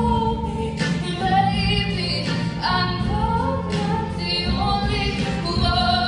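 A woman singing solo into a handheld microphone, holding long notes that bend and waver in pitch.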